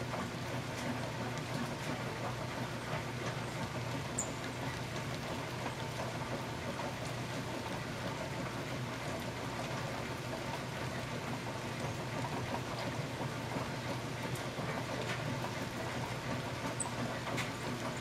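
Steady rain falling through woodland, an even hiss, over a steady low hum. A few faint high chirps sound once about four seconds in and twice near the end.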